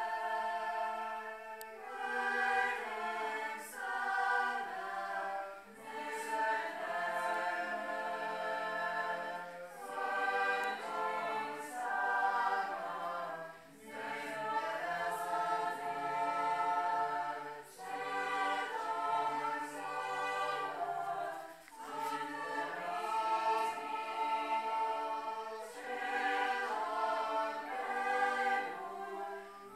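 A choir singing in harmony, sustained notes in phrases a few seconds long with short breaks between them.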